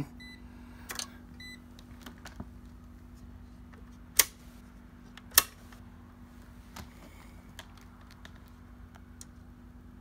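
Two short electronic beeps near the start, then two sharp clicks about a second apart, the loudest sounds, over a steady low hum, with small ticks and knocks from handling the test leads and the camera.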